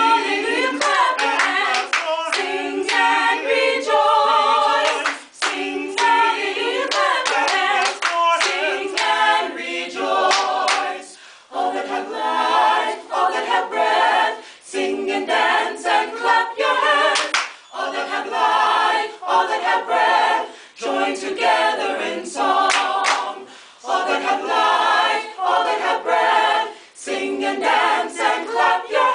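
A small group of voices singing together a cappella, with hand claps along with the song.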